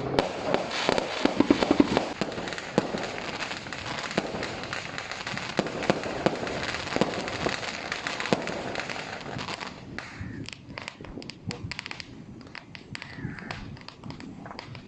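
Fireworks going off in a dense run of bangs and crackles, thinning to scattered separate pops about ten seconds in.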